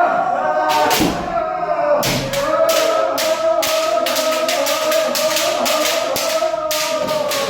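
Long, drawn-out kiai shouts of kendo practitioners sparring, with a rapid run of sharp clacks from bamboo shinai strikes and foot stamps starting about two seconds in.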